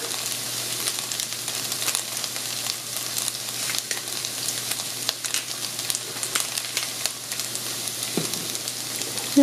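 Shredded hash brown potatoes frying in a nonstick saucepan: a steady sizzling hiss with many small crackles and pops.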